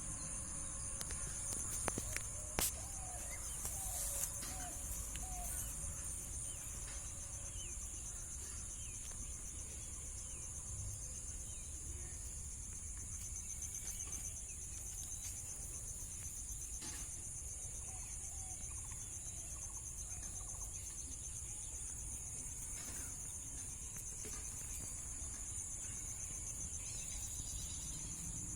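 Steady, high-pitched chorus of chirping insects throughout, with a few short calls and a couple of knocks in the first five seconds.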